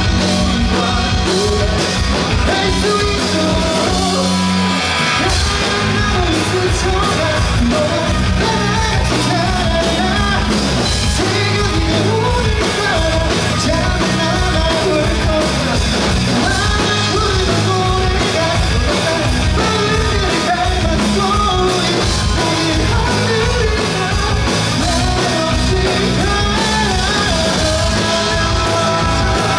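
Rock band playing live with a singer: drums, bass and guitars under a sung melody. The bass and drums drop out for a moment about five seconds in, then the band comes back in.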